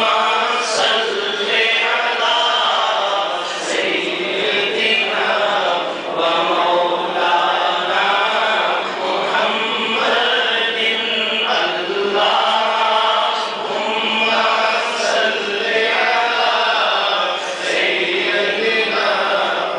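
A man reciting a naat, a devotional Urdu poem in praise of the Prophet, in a melodic chanting voice into a microphone, with long held notes and no pauses.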